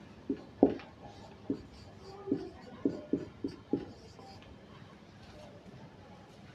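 Marker pen writing on a whiteboard: a run of short, sharp taps and squeaks as letters are stroked out, dying down after about four seconds.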